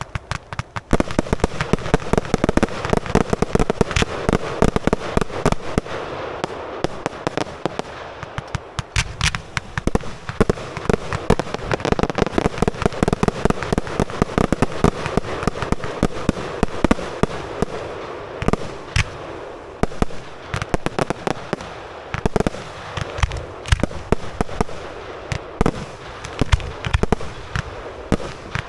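Aerial fireworks display: a dense, continuous barrage of sharp bangs from launching and bursting shells, starting about a second in, with crackle between the reports.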